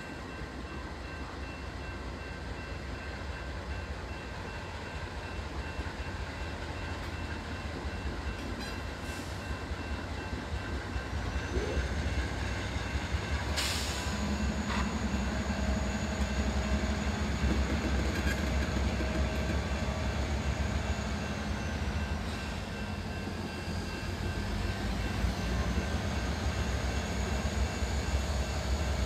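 Diesel freight locomotives passing close by at speed: a steady low rumble of engines and wheels on rail. It grows louder about halfway through as the lead units go by, with a high thin whine that rises and falls.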